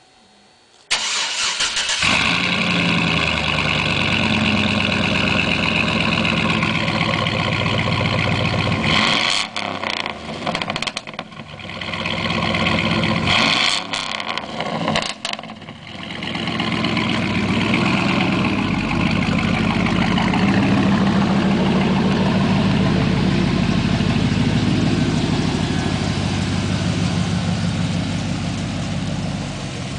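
A 2004 Chevrolet Avalanche Z71's 5.3-litre V8 with a custom exhaust starting about a second in and catching, then idling fast, with its idle speed settling down a few seconds later. In the second half the truck moves off and drives around with the engine running under light throttle.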